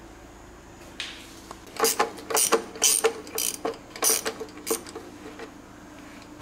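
Socket ratchet wrench clicking in an irregular run of strokes for about four seconds, after a single click about a second in, as it loosens the engine oil drain plug to drain the oil.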